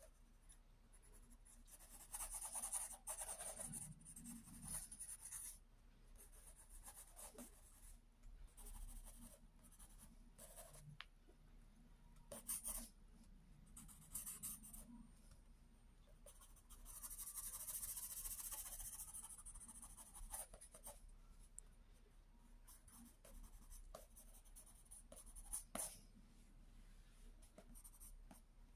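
Graphite pencil scratching on sketchbook paper: faint, irregular drawing and shading strokes, with one longer continuous stroke a little past the middle.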